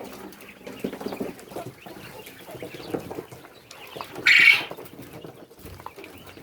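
Poultry clucking and chirping softly, with a short, loud, harsh rasp about four seconds in.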